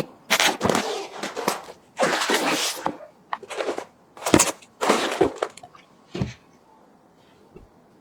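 Computer parts and plastic being handled during a PC build: a run of short crinkling, rustling bursts with a few sharp clicks, stopping about six and a half seconds in.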